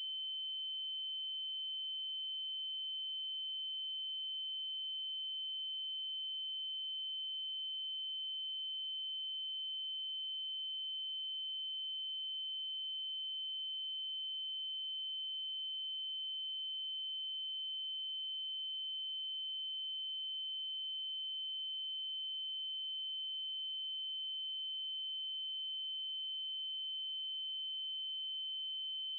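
Synthesized 3072 Hz triangle-wave tone: a single steady high-pitched note, held without change, with faint overtones above it.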